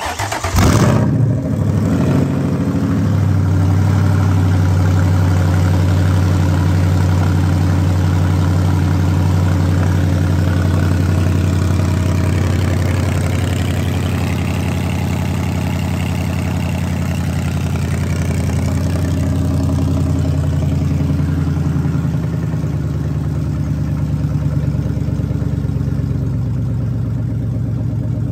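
2014 Ford Coyote 5.0 L V8 on its first start, running through open exhaust manifolds: it flares briefly in the first second or two just after catching, then settles into a steady fast idle that eases down a little after about twenty seconds. It runs with no bad noises.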